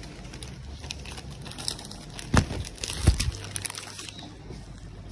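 Rustling and light clicks with two sharp thumps, about two and a half and three seconds in, over a steady low hum: handling noise from a phone carried by hand.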